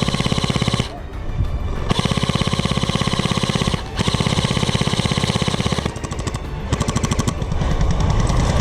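Airsoft rifle firing on full auto in four long bursts of rapid, evenly spaced shots, with short pauses between bursts.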